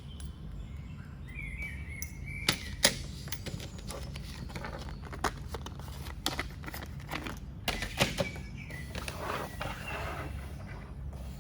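Scattered sharp clicks and taps of an electric screwdriver and its bits being handled, the loudest a few seconds in and again near eight seconds, over a steady low hum. A short chirp sounds about two seconds in.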